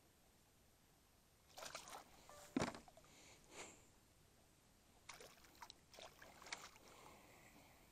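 Hooked redfin perch splashing at the surface beside a kayak: a few short, scattered splashes, the sharpest about two and a half seconds in and another cluster near the end.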